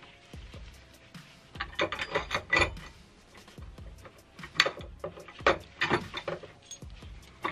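Metal bolts and hand tools clicking and tapping against the steel base plate of a chassis-mounted short shifter as the bolts are fitted and started, in several short clusters of sharp clicks.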